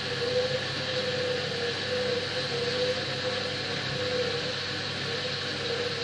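Hoover front-loading washing machine running a delicate cycle: a motor hum that wavers and swells at a fairly even pace over a steady hiss.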